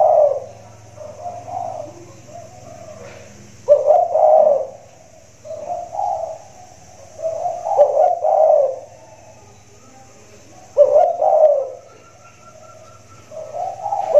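Big-voiced spotted dove (tekukur) cooing in its song, repeated phrases of low coos every two to three seconds, the louder phrases alternating with softer ones.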